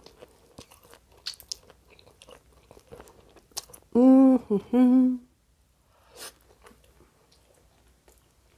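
Close-miked chewing of thin pizza crust, with many small crunches and mouth clicks. About four seconds in comes a loud, two-part hummed 'mm-mm' from the eater, lasting about a second.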